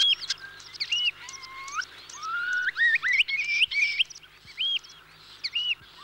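Common starling singing: a run of whistles and clicks with mimicked curlew and oystercatcher calls. Rising whistled glides repeat through the middle, and short arched whistles come near the start, about a second in, and near the end.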